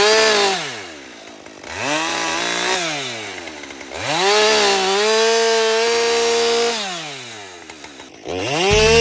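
Husqvarna 550 XP two-stroke chainsaw being throttled up and let back to idle again and again. It runs at full speed as it starts, winds down, then revs again about two seconds in, holds high for about three seconds from four seconds in, and revs up once more near the end.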